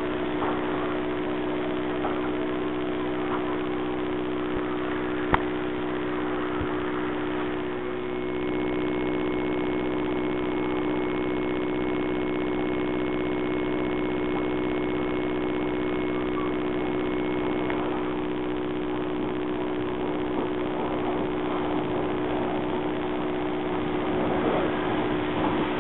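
Bulleid Pacific steam locomotives standing at the platform: a steady hum over an even hiss, with a single sharp click about five seconds in.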